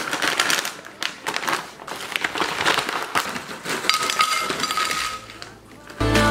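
Tortilla chips poured from a crinkly plastic bag, rustling and clattering onto a ceramic plate in a fast run of small clinks and crunches. Music starts near the end.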